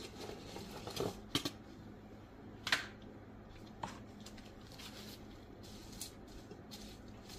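Quiet kitchen handling sounds: sliced bell pepper tipped from a paper plate into a pressure cooker's metal inner pot, then stirred with a utensil, giving a few soft knocks and rustles with a sharper click a little under three seconds in. A faint steady hum runs underneath.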